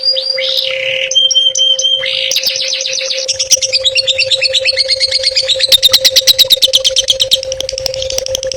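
Songbird singing a varied, fast masteran song: runs of quick rising-and-falling whistled notes, a held steady whistle about a second in, then a rapid trill of sharp notes that is loudest in the middle. A steady low hum runs underneath.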